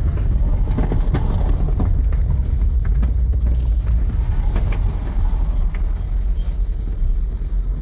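A car's engine and road noise heard from inside the cabin while it drives: a steady low rumble.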